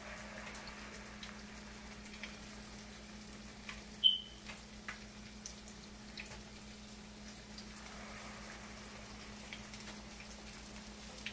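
Urad dal batter vadas frying in hot oil over medium heat: a soft, even sizzle with scattered small crackles. A single sharp clink about four seconds in.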